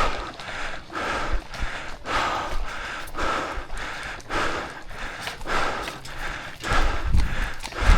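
A person breathing hard in quick, even breaths, about two a second, with a few low thuds near the end.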